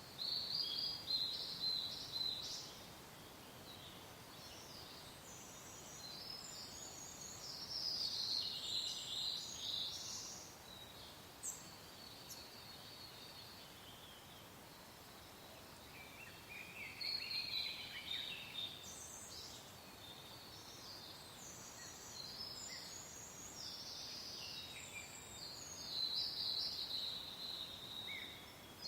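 Songbirds singing in bouts of high, quick chirping notes over a soft, steady hiss of wind.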